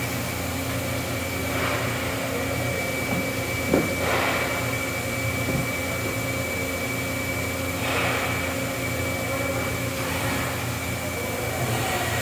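Makino A88 CNC horizontal machining center running under power: a steady mechanical hum with a thin high whine, a few short rushes of hiss, and one sharp knock a little before four seconds in.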